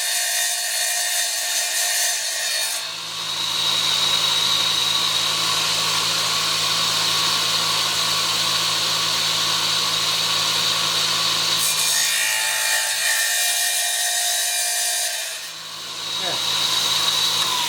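Electric tile saw running and cutting through a ceramic subway tile, a loud, continuous motor hum with a high whine; the sound changes a few times as the cut goes on.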